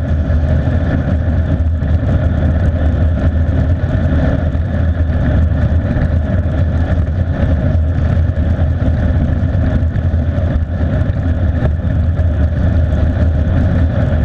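Motorcycle engine running steadily at cruising speed on an open road, a continuous low drone mixed with wind rushing over the microphone.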